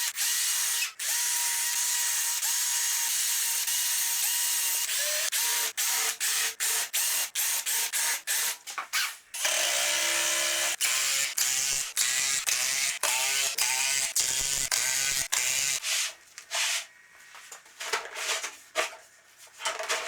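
Electric drill running: a steady whine for the first few seconds, then a run of short trigger pulls, each spinning up and stopping. It is pre-drilling, countersinking and driving screws through an MDF sled base into oak rails. The drill is quieter and more sporadic near the end.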